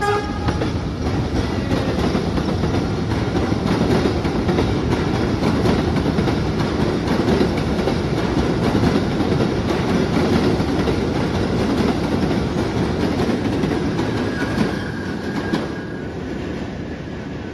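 R62A subway train pulling out and running along the elevated steel viaduct: a steady, loud noise of wheels on rails. It drops off near the end as the train moves away, with a faint high wheel squeal about fourteen seconds in.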